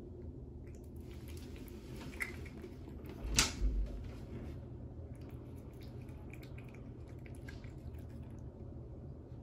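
A cat eating raw sardines and duck feet off a plate, with faint wet licking and chewing clicks. A single sharp knock about three and a half seconds in is the loudest sound.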